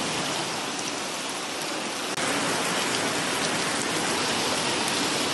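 Heavy monsoon rain pouring down on a waterlogged street, a dense steady hiss of rain on water, growing slightly louder about two seconds in.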